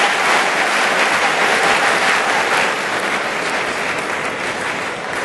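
Large arena crowd applauding a point just won in a table tennis match, the applause dying down over the last couple of seconds.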